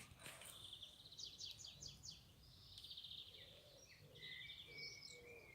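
Faint birdsong: quick high trills and short chirps, with a brief whistled note near the end.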